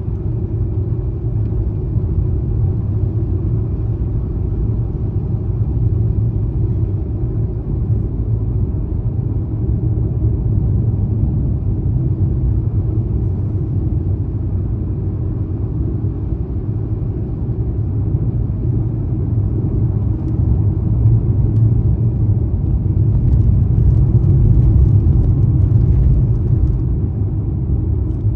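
Steady low rumble of a car being driven, engine and tyre noise, growing a little louder for a few seconds near the end.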